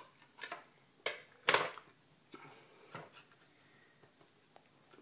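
Knife blade cutting and scraping along the sealed plastic seam of an Xbox 360 Slim hard drive case: a handful of short scrapes and clicks, the loudest about one and a half seconds in.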